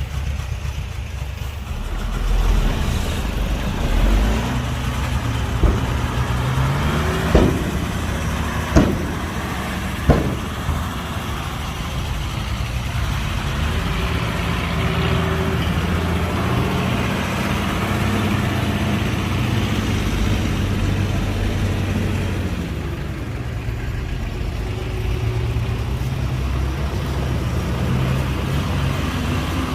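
Heavy diesel earthmoving machinery running, its engine revving up and settling back under load twice. About six to ten seconds in come four sharp metallic clanks, roughly one and a half seconds apart.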